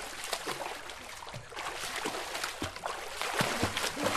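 Swimming-pool water sloshing in waves and splashing, irregular slaps and washes as earthquake shaking throws the water about.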